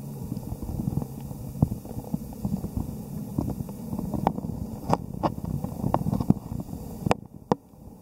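Muffled underwater ambience picked up by a submerged camera in a tidepool: a steady low rumble with scattered sharp clicks throughout, dropping away briefly near the end.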